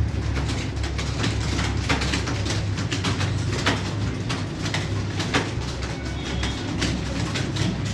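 Computer keyboard typing: irregular, rapid key clicks, several a second, over a steady low hum.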